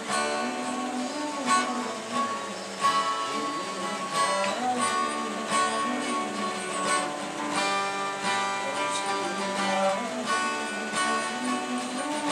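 Acoustic guitar being strummed, with a run of chords ringing under regular strokes.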